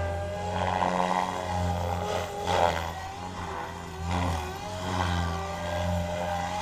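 SAB Goblin 500 electric RC helicopter in flight: a steady whine from the motor and rotor head, with rushes of blade noise that swell and fade every second or so as it manoeuvres.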